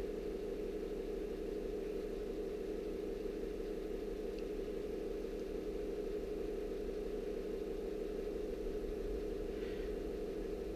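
Steady mechanical hum with several fixed tones, unchanging throughout.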